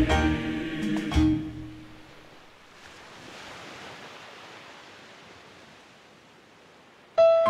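A song's final held chord dies away over the first two seconds, leaving a faint, even rush of ocean surf that swells gently and fades. Near the end, piano music starts abruptly.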